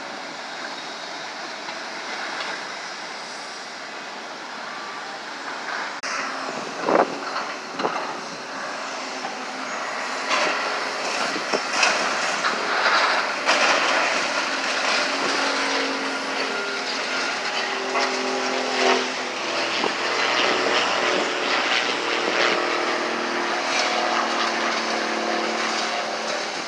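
Heavy demolition machinery running steadily, with loud bangs and crunches of breaking debris, sharpest about seven seconds in and again around twelve to fourteen seconds in; in the second half the engine note rises into a steadier hum.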